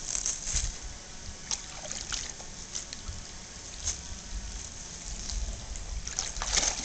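Water splashing and sloshing around a large dog's legs as it wades through shallow creek water, in irregular short splashes.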